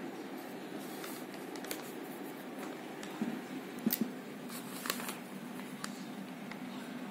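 Paper being handled and shifted on a cloth-covered table, with a few light clicks and taps in the middle, over a steady low hum.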